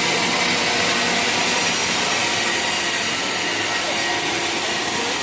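Sawmill saw cutting waru (hibiscus) wood, a loud steady rasping noise that turns brighter and hissier about a second and a half in.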